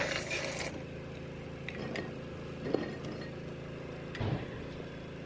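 A steady low hum, with a few faint clicks and clinks of a metal spoon against a cereal bowl as a small child eats.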